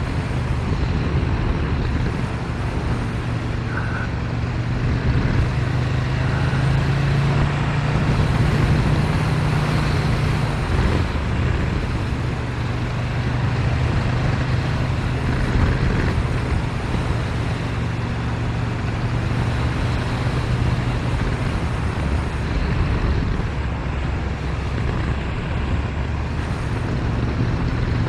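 Ducati Monster 1100 EVO's air-cooled L-twin running through a Competition Werkes GP slip-on exhaust while riding at steady road speed, over wind noise. The engine note rises a little around eight seconds in and drops back about three seconds later.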